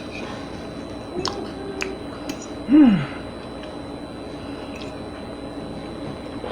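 Eating sounds: soft chewing with a few small mouth clicks, and one short 'mm' from a voice, falling in pitch, about three seconds in.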